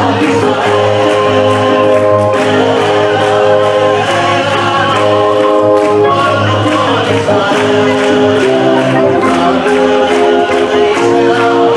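Choral music: a choir singing long held chords, the notes changing every second or two.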